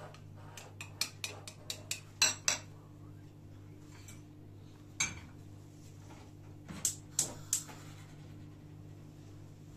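Metal spoon stirring yogurt sauce in a bowl, clinking quickly against the bowl's rim for the first two and a half seconds. After that come a single knock about halfway through and three clinks of a small steel pan handled on the gas stove, over a steady low hum.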